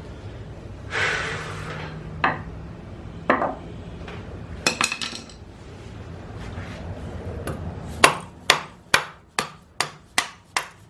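Hammer blows driving a tight-fitting power steering bracket and its bolt into place on an engine. A few scattered knocks come first, then in the last few seconds a steady run of sharp strikes, about two a second.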